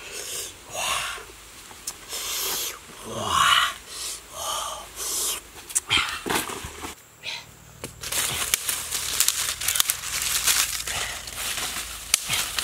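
A man's breathy, wheezy vocal sounds for the first several seconds; then, from about two-thirds of the way in, dry leaves crackling and rustling as they are gathered and handled.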